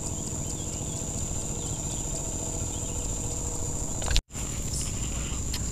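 Insects chirring in a steady, even high whine over a low background rumble, with a momentary dropout about four seconds in.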